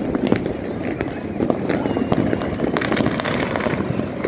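Many fireworks and firecrackers going off together: a steady, irregular crackle of pops and bangs over a low rumble, with a few short whistles.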